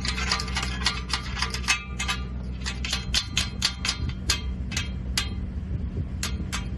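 Rapid hammer strikes on steel, each with a short metallic ring, about four or five a second with two brief pauses, over a steady low hum.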